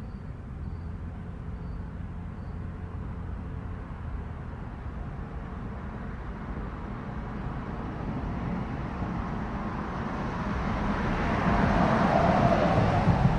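A car passing on a nearby road: low engine rumble with tyre noise building over several seconds to its loudest near the end, then starting to fade. A few faint cricket chirps, roughly one a second, in the first couple of seconds.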